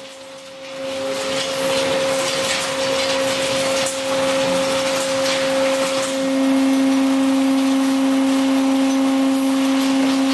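Wool-handling machinery running steadily: a mechanical drone with a low hum and a higher tone over a rattling hiss. It swells about a second in, and the low hum grows louder about six seconds in.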